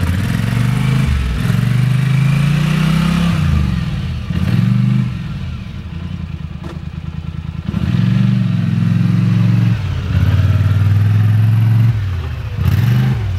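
Four-wheeler (ATV) engine being ridden, revving up and easing off again and again so that its pitch rises and falls.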